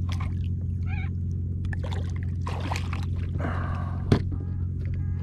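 Water splashing and sloshing right beside a kayak hull as a fish thrashes at the surface, over a steady low hum, with one sharp knock a little after four seconds in.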